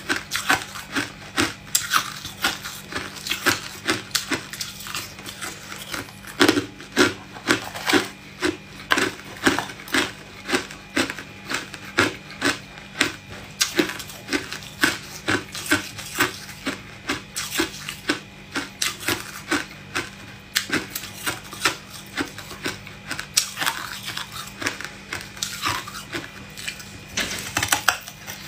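A person chewing hard ice with the mouth close to the microphone: a steady run of sharp crunches, about two a second, as the ice is bitten and crushed between the teeth.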